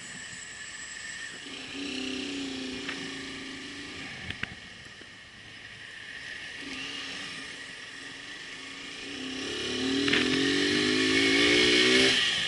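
Motorcycle engine running at low speed, then pulling harder from about nine seconds in, rising in pitch and loudness with a brief drop just before the end. Two sharp knocks come about four seconds in.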